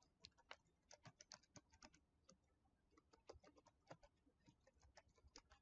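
Faint computer keyboard typing: irregular, quick key clicks with short pauses between runs.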